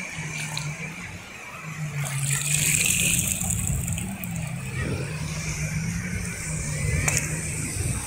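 Battery-operated walking toy cow running with a steady low hum, over the wash of shallow sea water.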